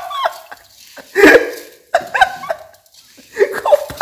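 A dog barking: three short barks about a second apart.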